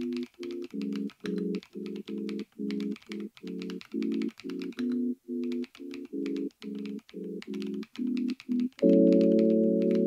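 Typing on a mechanical keyboard with Keychron Banana switches: a quick run of key clacks over background music. The music is short chords repeated evenly about three times a second, which turn into held chords near the end.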